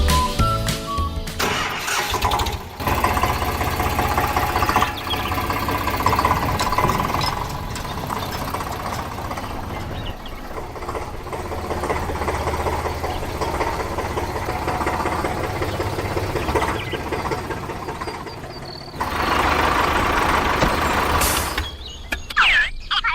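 RC toy vehicle running with an engine-like sound, steady and growing louder near the end, after a second or so of background music.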